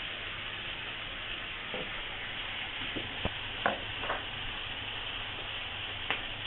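Chicken pieces sizzling steadily as they fry in oil in a wok. A few light knocks of kitchen utensils come around the middle and once near the end.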